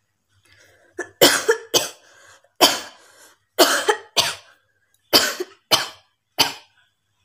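A person coughing deliberately for a coughing challenge: about eight loud coughs, mostly in quick pairs, starting about a second in.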